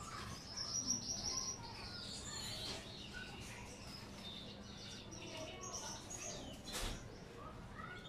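Small aviary birds, Gouldian finches and canaries, chirping and twittering in short high calls, busiest about a second in. A single short knock sounds near the end.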